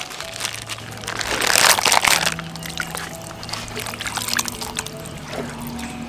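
Water sloshing and splashing in a steel basin as hands stir and rinse fish cakes and seafood sticks, loudest about one to two seconds in, over steady background music.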